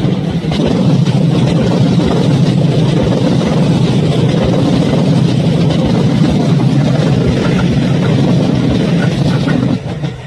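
Kintetsu electric train passing: a loud, steady rumble of wheels and running gear that drops away near the end.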